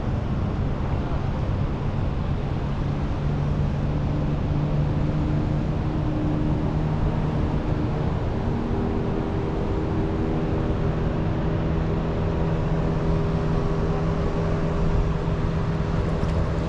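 A boat's outboard motor running steadily under way, over rushing wind and water noise. Its pitch lifts slightly a few seconds in and then holds.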